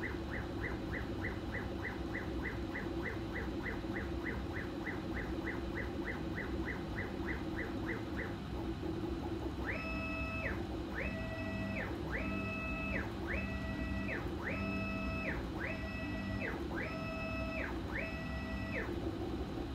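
HevORT CoreXY 3D printer's stepper motors whining as the print head moves, over a steady hum. For the first eight seconds the pitch flickers about four times a second on short back-and-forth moves. From about ten seconds in come eight longer strokes, each rising, holding and falling in pitch as the head speeds up and slows down.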